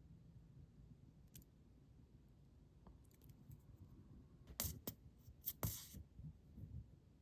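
Small craft tools and pieces being handled on a work surface: quiet at first, then a few sharp clicks about halfway through, with a short scrape just before the end.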